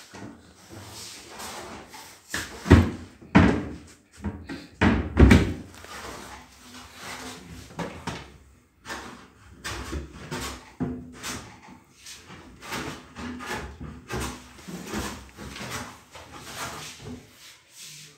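Kitchen cabinet doors being opened and shut, with loud knocks about three and five seconds in, then a run of lighter clicks and knocks.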